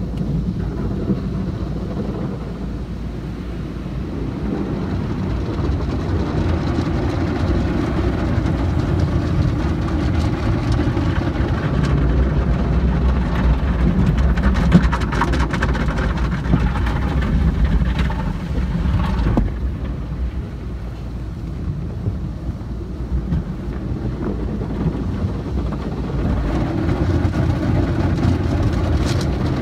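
Automatic car wash heard from inside the car's cabin: rotating cloth brushes scrub across the windshield and body over the steady rumble of the wash machinery. About two-thirds of the way through the scrubbing stops abruptly and the noise drops, then builds again as foam and water pour over the glass.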